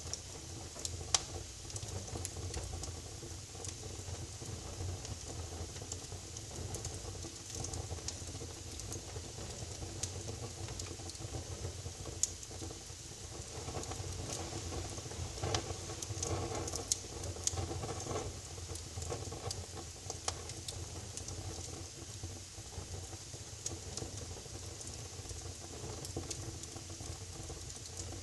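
Wood fire burning in a fireplace, crackling steadily with scattered sharper pops and a low rumble underneath.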